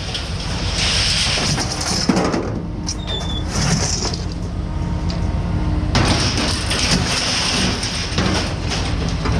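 A motor vehicle driving, its engine hum steady under a rush of noise that swells and fades.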